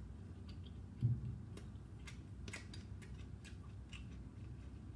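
Quiet eating of a mouthful of takeaway food: scattered faint clicks, with one soft low thump about a second in.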